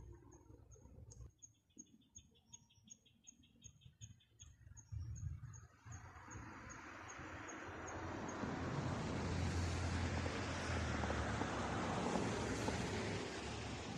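Outdoor ambience: short high chirps repeat about two or three times a second, with a brief rapid trill in the first few seconds. Then a rush of noise slowly swells over several seconds, becomes the loudest thing and eases off near the end.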